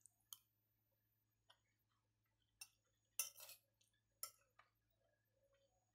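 Faint clinks and scrapes of a metal spoon against a plate as rice and chicken are scooped up: about half a dozen short sharp clicks, the loudest a little over three seconds in.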